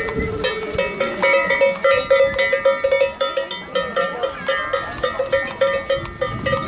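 Many livestock bells clanking and ringing together, irregular metallic strikes over several overlapping ringing tones, as a transhumance train of animals walks past.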